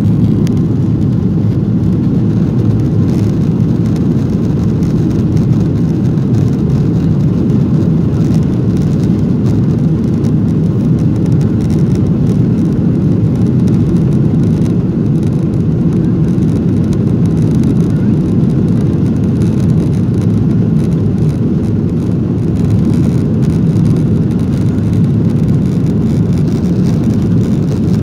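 Steady low rumble inside a Boeing 737 cabin as the jet rolls along the ground, engine and rolling noise blended into an even drone with no rise or change.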